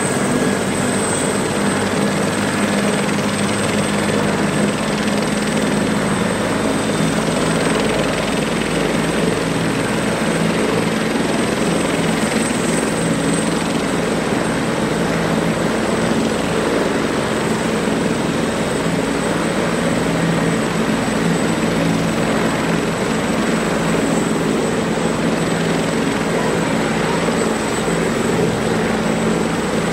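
Bell 412EPI helicopter running on the ground with its main rotor turning before lift-off. A constant high-pitched turbine whine sits over a steady rotor and engine drone, with no change in pitch or loudness.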